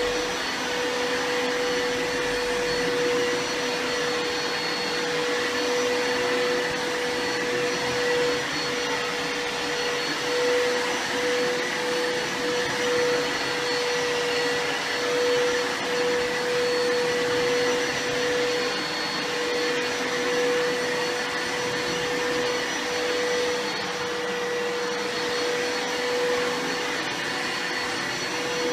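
Bissell carpet cleaner running steadily. Its motor gives a constant mid-pitched whine over a rushing hiss, with small rises and falls in level.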